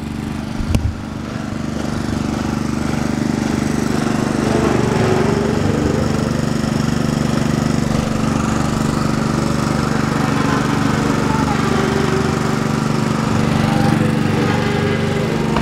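An engine running steadily at a constant pitch, with fainter engine notes rising and falling over it. There is a single sharp click under a second in.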